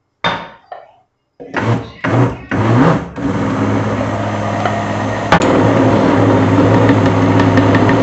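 Electric kitchen blender pulsed in several short bursts, then run steadily with a motor hum, mixing a thick corn cake batter. A sharp click about five seconds in.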